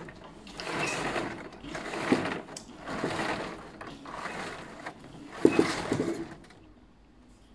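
Close-up gum chewing with wet, smacking mouth sounds, about one chew a second. The chewing dies away in the last second.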